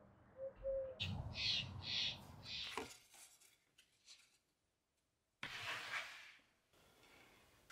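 A few short, low bird calls over outdoor noise, then a pause, then a brief clatter of thin wooden boards being moved and set down on a wooden tabletop.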